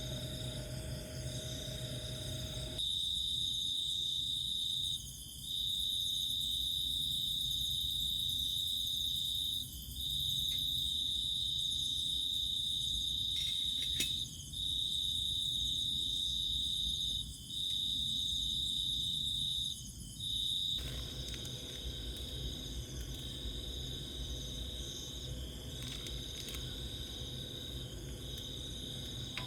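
Insects trilling. A loud, steady, high-pitched trill comes in long phrases of a few seconds each, broken by brief pauses, from about three seconds in until about twenty seconds. A constant chorus of fainter high insect tones goes on underneath.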